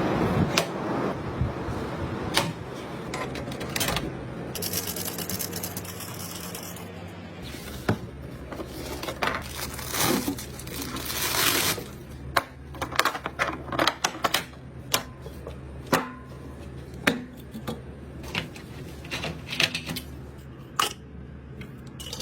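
Hands handling and fitting computer components: a series of sharp clicks and taps, with stretches of scraping and rustling, over a steady low hum.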